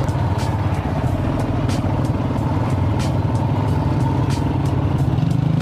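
Motorcycle engine running steadily at low speed in traffic, a steady drone heard from the rider's seat with road noise under it.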